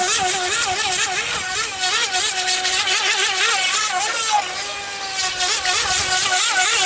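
Small remote-control boat's motor running with a high whine whose pitch wavers up and down rapidly, steadying briefly about two thirds of the way through.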